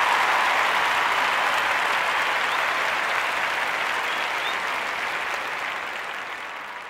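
Audience applause sound effect, fading out slowly over the second half.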